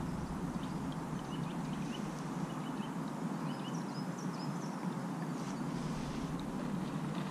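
Water swishing and lapping along an inflatable kayak's hull as it is paddled across calm water, with faint short high chirps scattered through.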